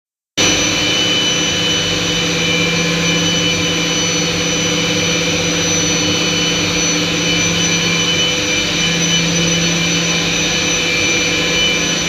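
Atlas Copco ZR 90 VSD oil-free rotary screw air compressor running steadily and loudly, a continuous rush with several steady whining tones, some of them high-pitched.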